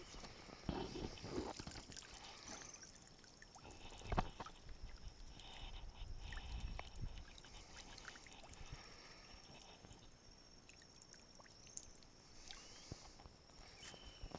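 Water dripping and trickling off a bundle of corn cobs hauled up out of the water on a rope, with small handling knocks and rubbing; one sharp knock about four seconds in.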